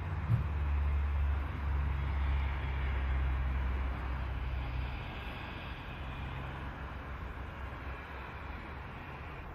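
Steam locomotive 3237, a NSW 32-class 4-6-0, working toward the listener from a distance as a low rumble that eases about five seconds in.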